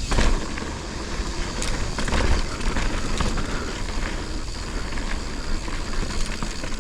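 Mountain bike riding down a dirt trail: wind rushing on the microphone and tyres running over dirt, with frequent short clicks and rattles from the bike over bumps.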